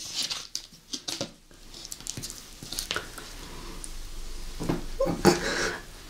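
Plastic spoons clicking and scraping as they scoop soft spread out of glass jars, with a brief vocal exclamation about five seconds in.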